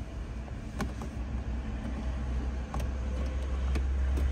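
Low steady car rumble that grows a little louder toward the end, with about five sharp clicks and knocks of fumbling for the car's diagnostic port to plug in a code reader.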